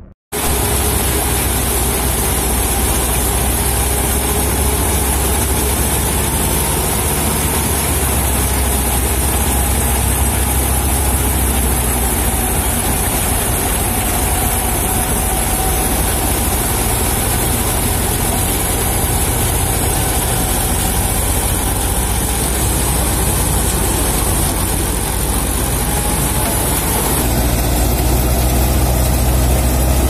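Tractor engine running steadily while it drives a tractor-mounted wheat harvester at work, the engine's low hum mixed with the constant high hiss of the threshing and cutting machinery. It cuts in suddenly just after the start and grows a little louder near the end.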